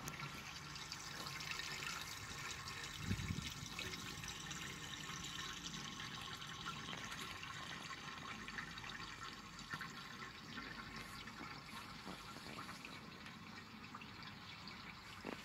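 Faint steady bubbling and trickling of water, heard with the microphone underwater, from a column of rising bubbles in an aquarium tank, full of tiny crackles. A soft low thump about three seconds in.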